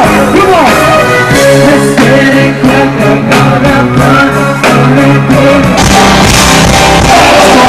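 Loud band music with a sung vocal over a steady drum beat; about six seconds in the sound turns fuller and brighter.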